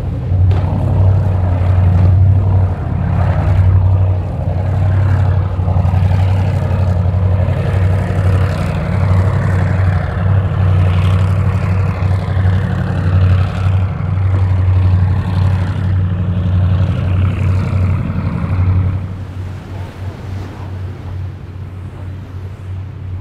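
Cigarette racing powerboat's engines running hard with a deep, steady rumble, over a high whine that slowly falls in pitch. About nineteen seconds in, the sound drops to a quieter rumble of engine and water.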